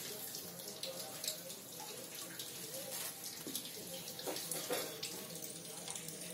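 Faint scratching and rustling as kittens claw at and climb a cloth-wrapped pole, with scattered light ticks over a steady hiss.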